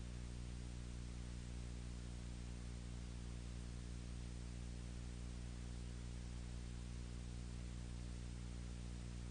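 Steady electrical hum with a layer of hiss that does not change: the background noise on the soundtrack of a silent film, with no recorded sound of its own.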